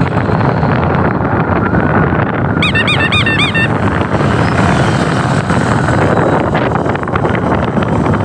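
Wind rushing over a helmet-mounted phone's microphone on a moving motorcycle, with engine and road noise underneath. About three seconds in, a brief series of high chirping calls cuts through for about a second.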